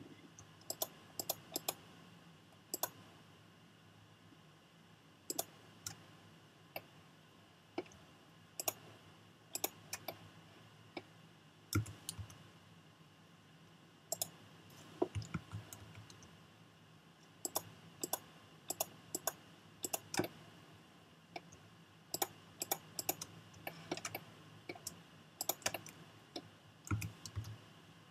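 Computer mouse buttons and keyboard keys clicking irregularly while working in 3D modeling software, often two or three clicks in quick succession, over a faint steady hum.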